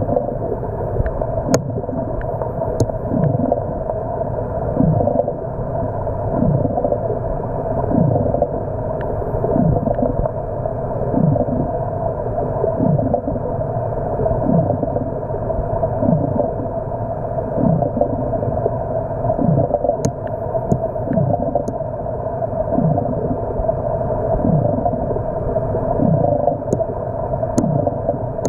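Underwater sound picked up through a camera housing: a steady muffled hum with a low, downward-sweeping sound repeating about every second and a half, and a few sharp clicks.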